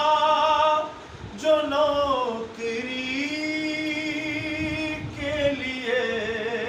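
A man singing a naat unaccompanied, drawing out long held notes that slide slowly between pitches, with a brief break about a second in.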